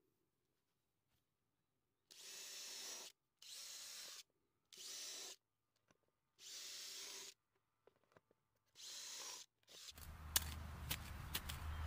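Cordless drill run in five short bursts of about a second each, boring into a rubber car tyre. Near the end, a run of sharp knocks over a low rumble.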